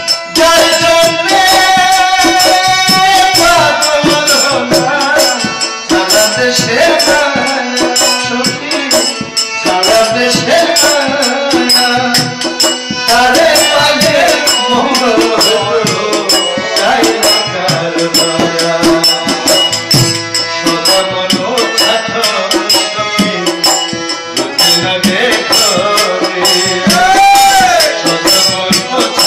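Live folk devotional music: a male voice singing into a microphone over a harmonium, with hand-played rope-laced barrel drums keeping a steady, busy beat.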